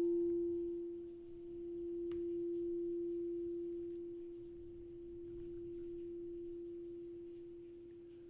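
A single pure, steady mid-pitched ringing tone from a sound-healing instrument. It rings on with faint overtones that fade early, swelling and ebbing gently in loudness.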